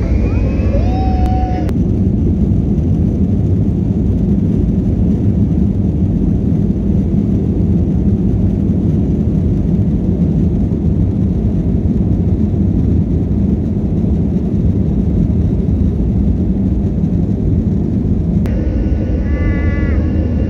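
Airliner jet engines heard from inside the passenger cabin while the plane is on the runway: a loud, steady low rumble.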